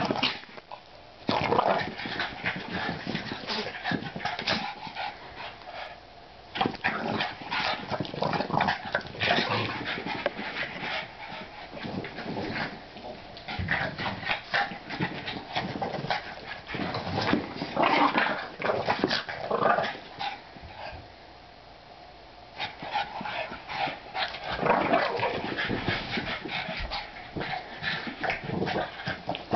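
A French bulldog and a Boston terrier play-fighting, vocalising in irregular bursts with a few short lulls.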